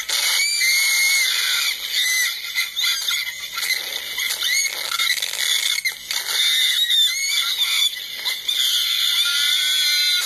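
Three young women screaming and squealing in high-pitched shrieks, nearly without a break, while being flung about on a bungee ball ride.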